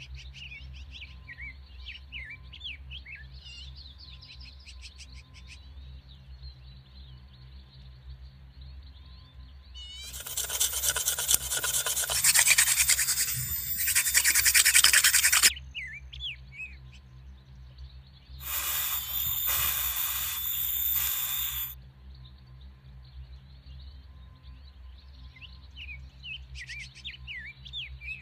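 Fire-making by friction: a wooden drill stick spun hard into a bamboo tube, a loud, fast rasping in two bouts of about five and three seconds. Birds chirp in the quieter stretches before and after.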